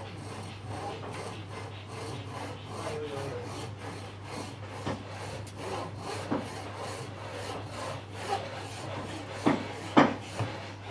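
Traditional wooden frame saw with a cord-tensioned blade cutting a small wooden block held in a bench vise, in quick, even back-and-forth strokes. Near the end come three sharp knocks, the loudest sounds.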